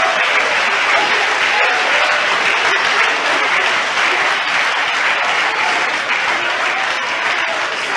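A church congregation applauding: dense, steady clapping from many hands, easing off a little near the end.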